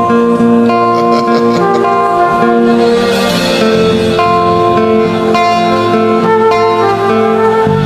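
Instrumental worship music with a guitar: held chords that change every second or two.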